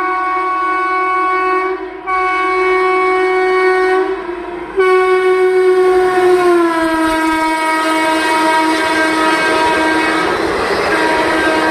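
Horn of an Indian Railways electric locomotive hauling an express, blown as long blasts with two short breaks. Its pitch drops about six and a half seconds in as the locomotive passes at speed. Near the end the rush and wheel clatter of the passing coaches swells under the horn.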